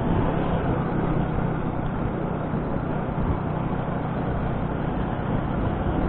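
Suzuki Shogun Pro 125's single-cylinder four-stroke engine running while the motorcycle is ridden, with steady wind and road rush on the microphone.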